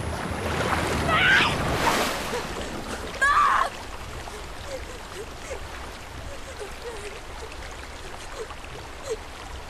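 Rushing, churning floodwater with loud shouted calls about a second in and again about three seconds in, then fainter short cries over the water.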